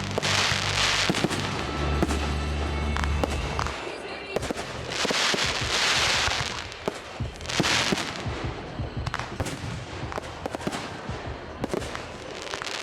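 Fireworks bursting overhead: many sharp bangs and several loud crackling surges lasting a second or two each, over accompanying music whose low notes hold steady for the first four seconds or so.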